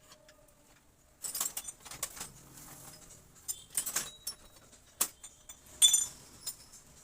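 Irregular metallic clinks, rattles and a few sharp knocks from working on a motorcycle's rear mono-shock absorber, starting about a second in.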